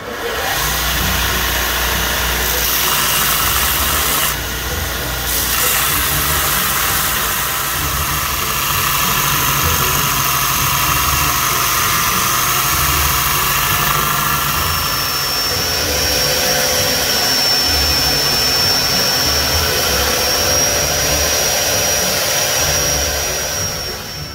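Belt grinder running while a steel hatchet head made from truck spring steel is ground against the abrasive belt: a steady grinding hiss over the motor's hum. The grinding dips briefly about four seconds in, and a thin high whine joins from about fifteen seconds on.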